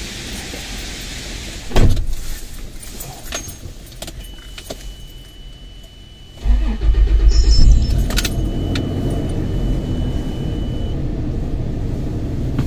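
A Toyota car's door shuts with a thump about two seconds in, followed by a few small clicks. About six seconds in the engine starts, runs louder for a second or so, then settles into a steady idle. A thin steady high electronic tone sounds through the middle stretch.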